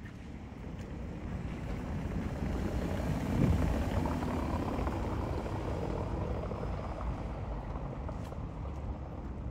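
A motor vehicle passing close by. Its noise builds to a peak about three and a half seconds in, then fades slowly.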